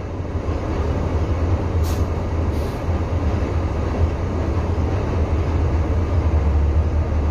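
A vehicle engine running at idle: a steady low hum, with two brief high hisses about two seconds in.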